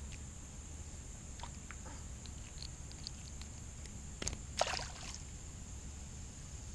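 Faint clicks of hands handling fishing tackle, then a short splash in the water beside the boat about four and a half seconds in.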